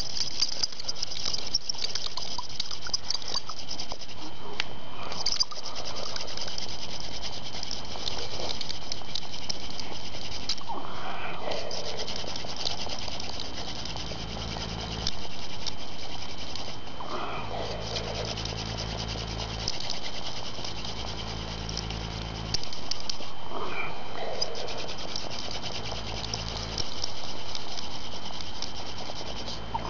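Hand-drill fire friction: a mullein spindle spun between the palms, grinding into a red oak hearth board with a steady, dry rubbing hiss, broken for a moment every several seconds as the hands go back to the top of the spindle.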